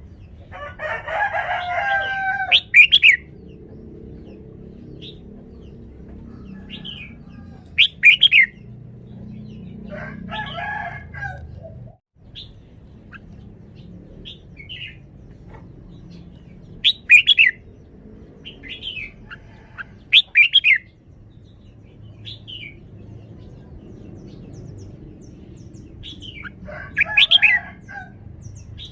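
Red-whiskered bulbul singing in short, loud, whistled phrases spaced several seconds apart, with a few longer, lower chattering calls between them.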